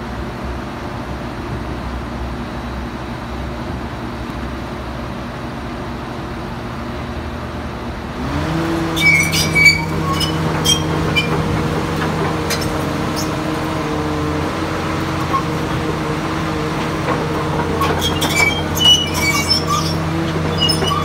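Heavy diesel engine running steadily, then about eight seconds in it speeds up to a higher, steady pitch and gets louder. Short, high metallic squeaks and clinks sound over it from then on.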